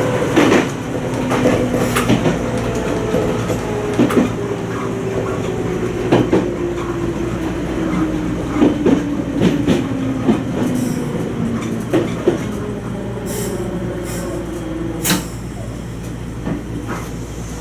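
Toyama Chiho Railway 20020-series electric train (ex-Seibu New Red Arrow) running, heard from on board. Its motor whine falls slowly in pitch as the train slows, and the wheels knock over rail joints again and again.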